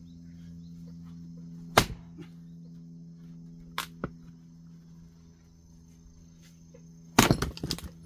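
Axe chopping firewood on a chopping block. There is one sharp chop about two seconds in and two lighter knocks around four seconds. Near the end comes a heavy blow followed by a quick run of knocks.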